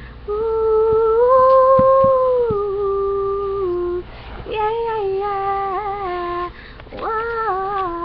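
A girl singing unaccompanied, holding three long wordless notes. The first lasts about three and a half seconds, swells slightly and steps down near its end. The next two are shorter and fall in pitch.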